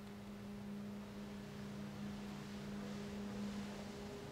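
Faint, steady low hum with a weaker tone an octave above it.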